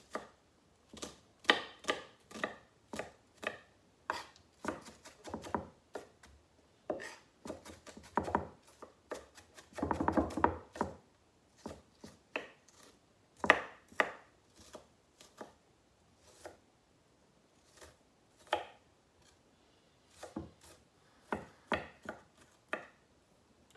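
Kitchen knife chopping onion on a wooden cutting board: irregular knocks of the blade on the board, with a short, quicker run of chops about ten seconds in.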